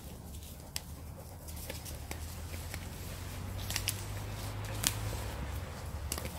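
Hennessy hammock's nylon fabric handled and bunched into its snakeskin sleeve, with a few sharp clicks, over a steady low rumble.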